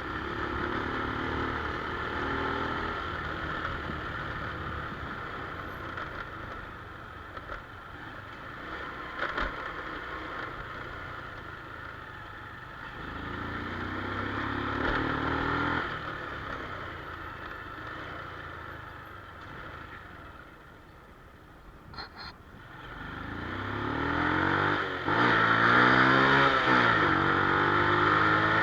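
Honda Wave 110i motorcycle's small single-cylinder engine running and revving up twice, about halfway through and again near the end, its pitch rising with each rev. The second rev is the louder, and a couple of sharp clicks come just before it.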